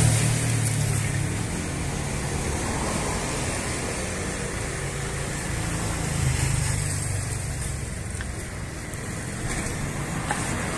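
Steady traffic noise from passing road vehicles, a low engine rumble with a hiss of tyres, rising a little about six seconds in.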